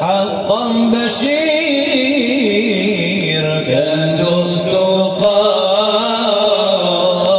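Male voice chanting an Islamic nasheed with long, drawn-out notes that waver in pitch.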